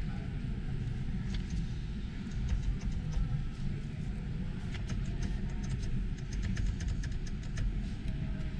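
Steady low rumble of a large exhibition hall's background noise, heard from inside a parked car's cabin, with scattered faint clicks from about two seconds in until near the end.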